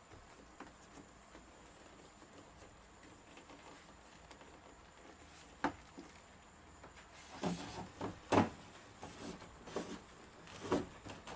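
Plastic-sheathed electrical cable being pulled through holes in wooden wall studs by hand: faint rubbing at first, a single sharp tap about halfway through, then a run of knocks and scrapes of cable and hands against the wood near the end.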